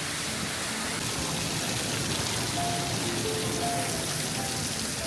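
Waterfall pouring: a steady rush of falling water, with soft background music playing over it.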